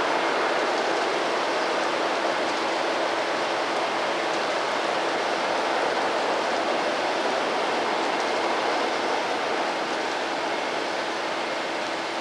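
Steady rushing noise of a freight train rolling on the rails, easing off slightly near the end.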